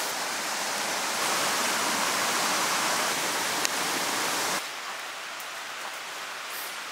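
Steady rushing water noise in a forest, dropping suddenly to a quieter level about four and a half seconds in.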